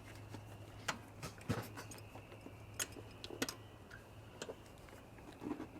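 A handful of light, separate clicks and knocks as the serpentine belt is handled and worked back onto the pulleys of the engine after an alternator replacement, over a faint steady hum.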